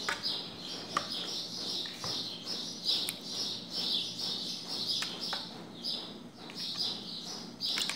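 A small bird chirping steadily, two or three short high chirps a second. A few light clicks and taps come from raw marinated chicken pieces being set into a metal baking tray.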